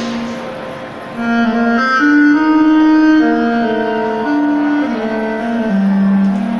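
A melody played on a 3D-printed compact saxophone prototype (Travelsax), one line of quick and held notes. It gets louder about a second in and ends on a lower held note.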